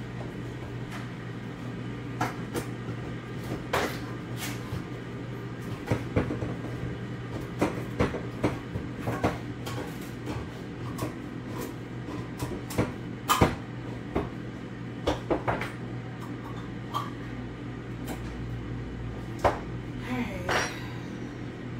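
Kitchen clatter: pots, dishes and utensils knocking and clinking at irregular intervals over a steady low hum.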